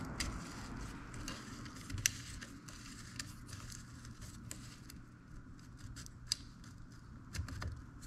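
Quiet, scattered small metal clicks and light rattles as the rewind spring of an old GM seatbelt retractor is turned by hand on its shaft to add tension.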